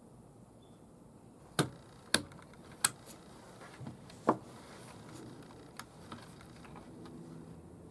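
Sharp clicks and taps of small hard objects being handled: four loud ones within about three seconds, then a few fainter ones.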